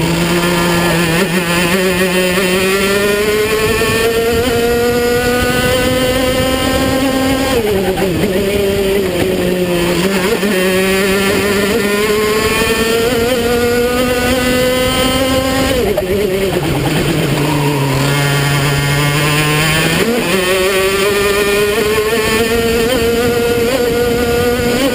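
Two-stroke racing kart engine heard on board under hard acceleration. Its pitch climbs along the straights and drops sharply as the driver brakes about 8 seconds and 16 seconds in. It stays low through a slow corner, then climbs again near 20 seconds.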